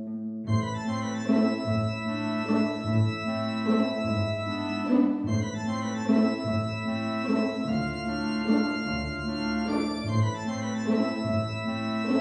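Background organ music: sustained chords with a steady pulse of repeated notes, coming in about half a second in.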